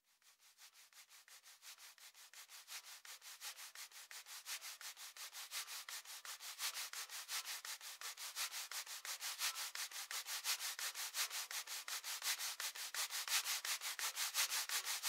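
Rhythmic scraping strokes, about four a second, fading in from nothing and growing steadily louder.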